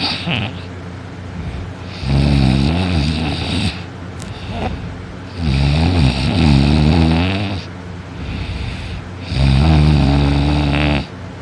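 A sleeping man snoring loudly: three long snores, each about one and a half to two seconds, coming about every four seconds, with a wavering rough pitch and quieter breathing sounds in between.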